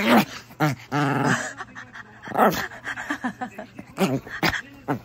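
Maltese dog growling and whining in a run of short, bending-pitch bursts while mouthing a hand in rough play.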